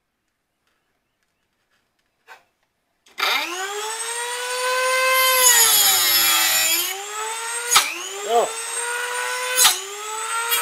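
A high-speed rotary tool with a metal cut-off wheel starts about three seconds in, its whine rising quickly in pitch, then grinds into steel with a gritty hiss. Its pitch sags under the cutting load, with two sharp cracks along the way.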